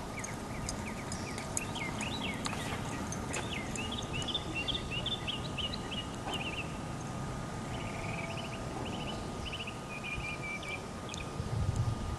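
Small birds chirping in quick repeated phrases over a low background rumble, with a faint steady high tone underneath. A horse's hooves thud softly on turf, most clearly near the end.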